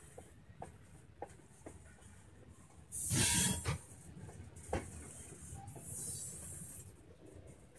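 Freight cars rolling past, their wheels clicking over the rail joints, with a loud clatter about three seconds in, a sharp knock near five seconds and a hiss around six seconds.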